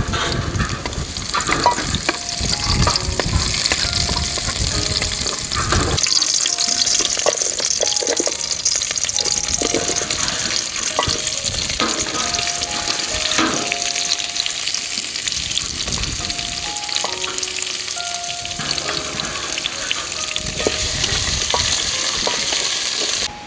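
Food sizzling as it fries in a hot pan, with stirring and knocking in the pan for about the first six seconds. After that the sizzle runs on steadily on its own, then cuts off abruptly near the end.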